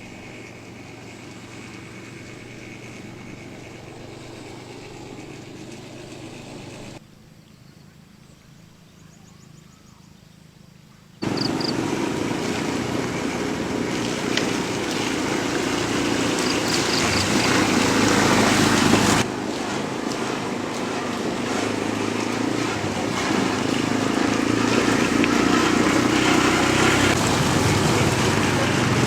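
Small motor vehicle engine running steadily with road and outdoor noise. It jumps abruptly louder about a third of the way in and stays loud to the end.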